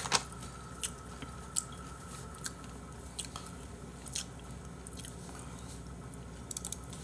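A person chewing a crunchy snack close to the microphone, with scattered crisp crunches about once a second.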